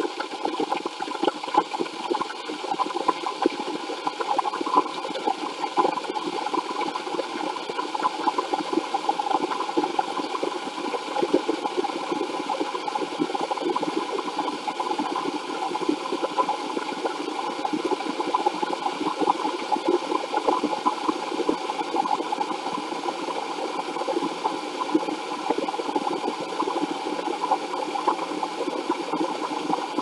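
Electric kettle heating water from cold with its lid off: a steady, dense hiss and crackle as steam bubbles form on the hot heating element, well before the water reaches the boil.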